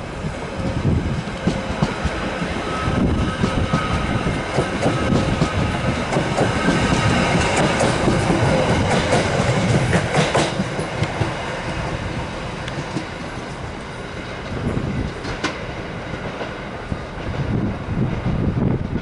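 Merseyrail Class 777 electric multiple unit pulling out and passing close by. Its wheels rumble and clatter over the rail joints, loudest about halfway through, then fade as it runs away over the points, with a few more clunks near the end.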